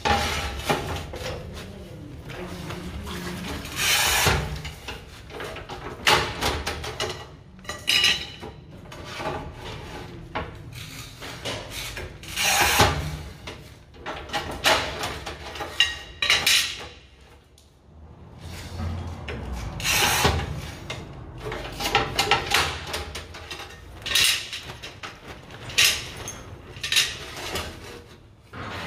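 Manual rail tile cutter scoring and snapping ceramic floor tiles: repeated scratchy strokes of the scoring wheel drawn along the glaze, with sharp clacks as the tiles break and the pieces are handled.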